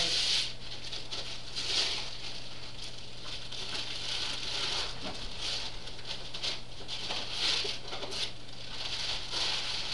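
Wrapping paper rustling and crinkling in repeated bursts as presents are unwrapped, over a steady low hum.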